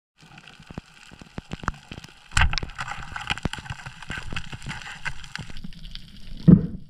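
Underwater sound over a coral reef: a dense crackle of sharp clicks over a steady hiss, with a louder burst about two and a half seconds in and another near the end.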